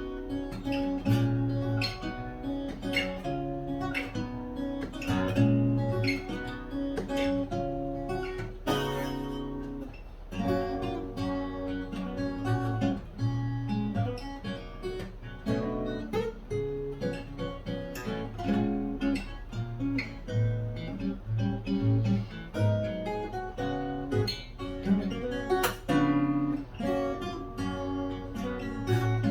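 Solo acoustic guitar in EADGBD tuning with a capo at the 2nd fret, playing a fingerstyle piece: plucked melody notes over ringing bass notes, with a strummed or struck chord now and then, one strong one about nine seconds in.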